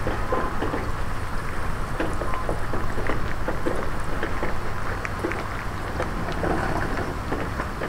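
Rain falling, individual drops ticking irregularly, over a steady low rumble of wind.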